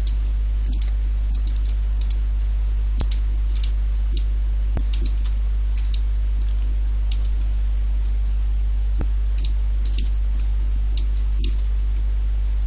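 Scattered soft clicks and taps of a computer keyboard and mouse, a few to each second, over a steady low electrical hum and hiss.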